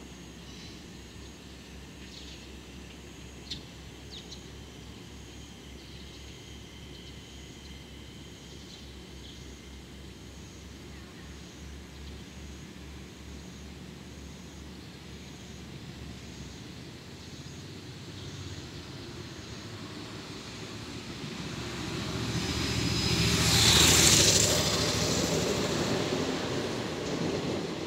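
Two-car KiHa 120 diesel railcar set approaching at low speed: a low engine drone that builds over the last ten seconds or so. It is loudest about three-quarters of the way in as the cars come close, with a hiss of wheels on the rails, then eases a little.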